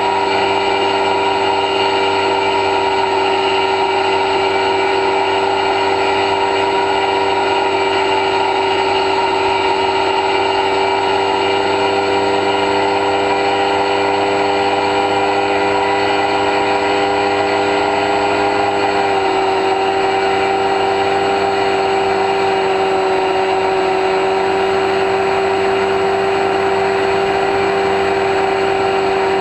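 Electric motor and pusher propeller of an X-UAV Talon RC plane running at steady throttle, heard through the onboard camera: a steady whine made of several tones, which dips slightly in pitch about two thirds of the way through.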